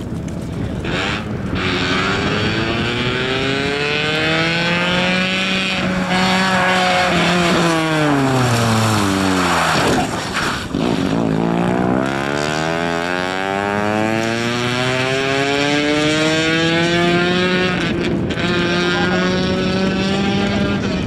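Ford Escort RS 2000 rally car's four-cylinder engine revving hard, its pitch climbing through each gear and falling back at the shifts. Around the middle the revs fall away sharply as the driver lifts off, then it pulls up through the gears again.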